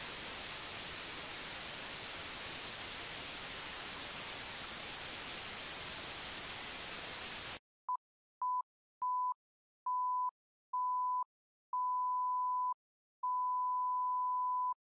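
TV-static white-noise hiss that cuts off abruptly about halfway through. It is followed by a film-countdown beep effect: seven beeps at one steady mid pitch, each longer than the last, the final one held for about a second and a half.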